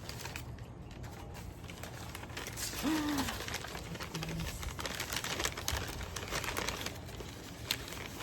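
Packaging crinkling and rustling with small clicks as a shipping box is unpacked by hand, the crackling getting busier a few seconds in.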